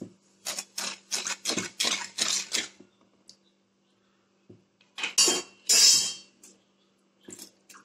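Perforated steel ladle scraping and clinking against a metal kadai while stirring sugar into water to dissolve it: a run of quick strokes, then two louder scrapes about five seconds in, and a few light taps near the end.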